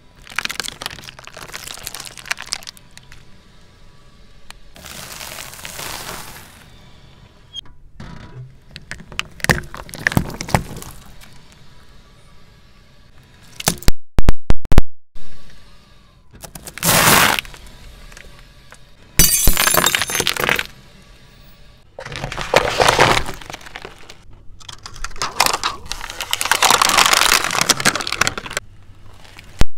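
Car tyre rolling onto and crushing a series of objects, mostly plastic containers and cups: a run of separate cracks and crunches, several of them sharp and very loud, with quieter pauses between.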